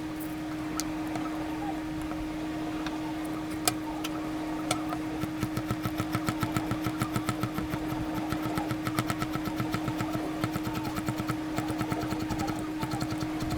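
Fast, even tapping in the kitchen, about six strokes a second, starting about five seconds in after a few separate clicks, over a steady hum.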